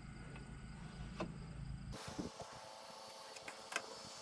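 Faint steady mechanical hum with a few light clicks and taps of sheet-metal flashing being handled. The sound changes abruptly about two seconds in, from a low rumble to a higher steady hum.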